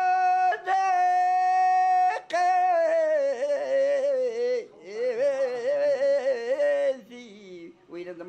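A man singing a raweh, an Assyrian sacred melody, alone and without instruments. He holds long high notes through the first two seconds, then sings a wavering, ornamented phrase that sinks and fades near the end.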